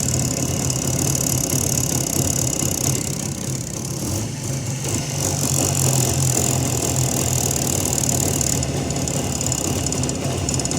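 Jawa motorcycle engine idling steadily with a metallic ringing rattle from the carburetor throttle slide, a sign that the slide is worn loose in its bore.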